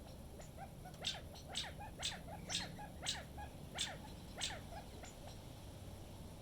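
An animal giving a run of about seven sharp, high calls, each dropping in pitch, roughly one every half second, over the low rumble of wind on the microphone.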